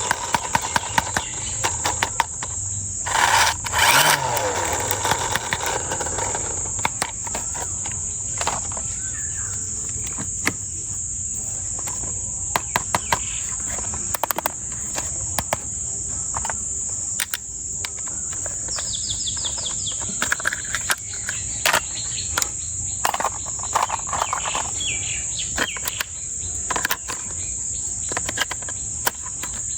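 Insects chirring in a steady high-pitched drone, with many short clicks and taps scattered over it and a couple of louder brief noises near the start.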